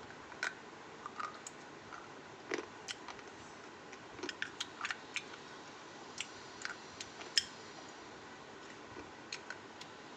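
Crunchy food being bitten and chewed close to the microphone: a string of short, sharp crunches at irregular spacing, the loudest about two-thirds of the way through.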